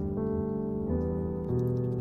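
Background music: a steady keyboard-style tune whose notes change about every half second.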